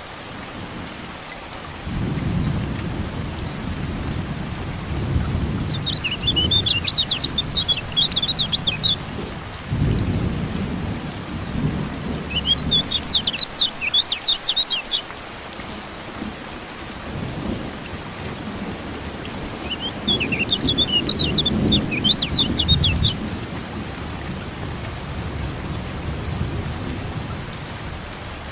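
Rain with rolling thunder rumbles, over which a kecial kuning white-eye gives three bouts of rapid, high-pitched chirping, each lasting about three seconds.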